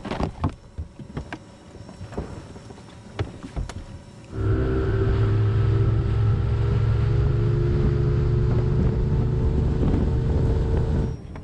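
A bass boat's outboard motor running at speed: a loud, steady drone with wind and water rushing past. It starts suddenly about four seconds in and cuts off just before the end. Before it come a few light knocks and clicks from the boat deck.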